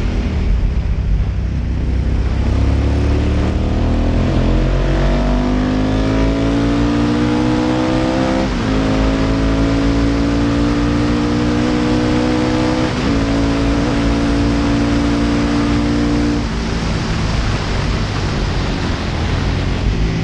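Ducati engine of a classic racing sidecar outfit under hard acceleration, heard onboard over heavy wind rush: the revs climb, drop briefly at a gear change about eight and a half seconds in, climb again, shift again about thirteen seconds in, then hold. The engine note fades about sixteen seconds in as the throttle comes off.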